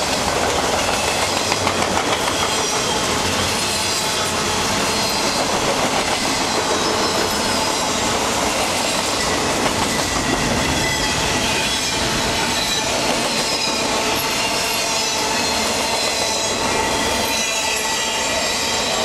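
Intermodal freight cars loaded with shipping containers rolling past close by: a steady rumble of steel wheels on rail with the clickety-clack of wheels over rail joints and thin, high-pitched wheel squeal.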